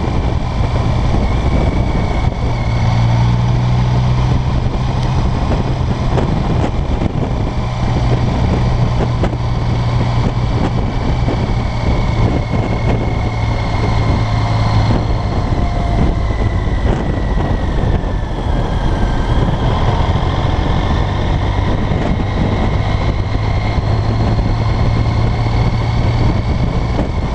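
BMW K75 motorcycle's inline-three engine running steadily under way, mixed with wind and road rush on the bike-mounted microphone.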